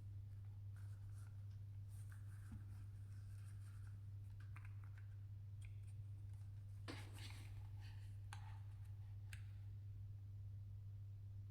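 Faint clicks and light rustling as the OneOdio Studio Max 1 headphones are handled, over a steady low hum.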